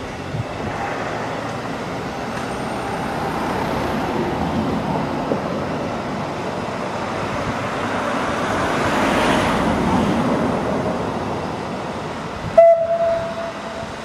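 A steam locomotive's whistle sounds one short, steady blast, about a second and a half long, near the end, over a rushing noise that swells and fades.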